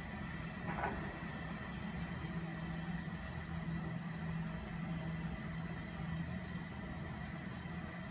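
Steady low mechanical hum with a faint, constant high-pitched whine above it, and one brief sound about a second in.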